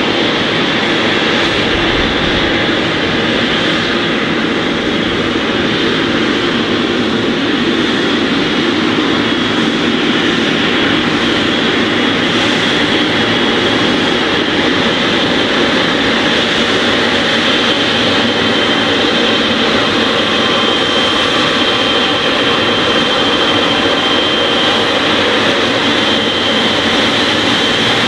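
Jet engines of a Boeing 777 running at taxi power: a steady rush with a thin, steady high whine over it.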